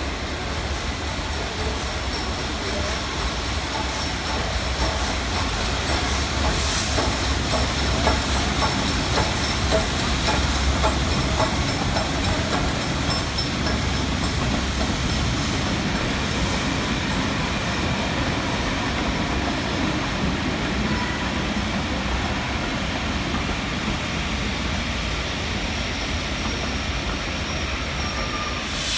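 Train rolling past on the rails with a steady rumble and wheels clicking over rail joints, with a faint thin squeal from the wheels.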